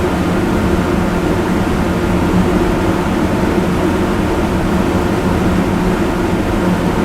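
Electric fan running at full speed: a loud, steady rush of air with a faint hum beneath it, unchanging throughout.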